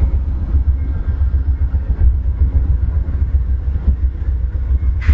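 Amtrak bilevel passenger cars rolling slowly past, a steady low rumble.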